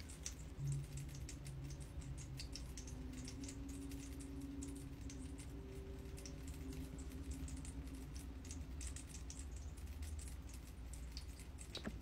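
Rain cloud humidifier dripping water from its cloud into the water basin below: a quick, irregular patter of small drips.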